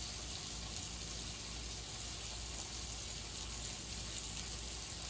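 Burger meat frying in a pan, giving a steady sizzle.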